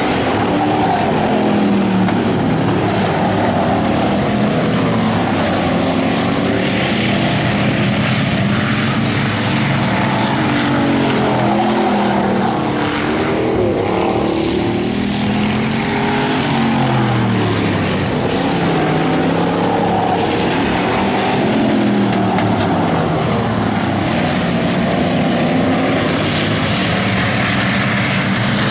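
Several bomber-class stock car engines racing around a short oval track, overlapping, their pitch rising and falling as the cars lap and pass by.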